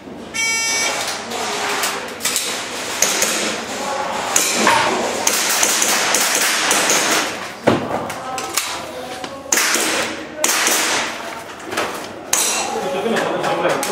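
A shot-timer start beep about half a second in, then airsoft gun shots and BB hits on targets during an IPSC-style course of fire: a string of sharp knocks and taps.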